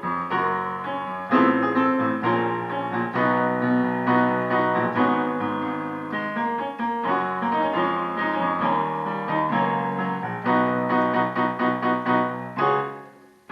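Piano playing a gospel chord progression in D flat, one full chord after another with the notes left ringing. It dies away near the end.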